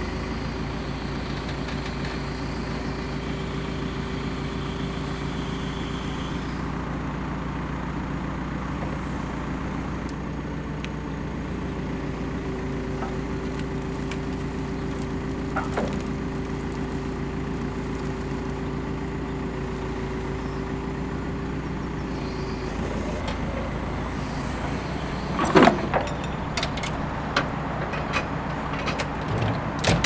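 Backhoe loader's diesel engine running steadily under load, with a steady whine that drops out for a few seconds and then stops, as it sets a log on a portable sawmill bed. Several sharp knocks and clanks come near the end.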